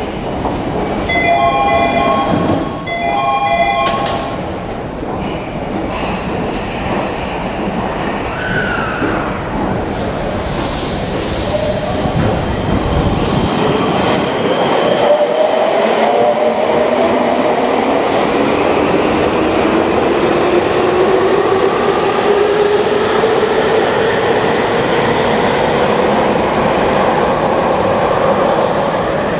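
A door-closing chime sounds twice in quick succession, then a Tokyu 3000 series electric subway train pulls out of the station. Its traction motors give a rising whine as it picks up speed, over the running noise of the wheels on the rails.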